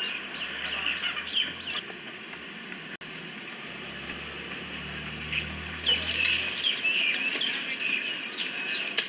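Birds chirping in quick short calls, busiest about six seconds in, over a low engine rumble that comes and goes.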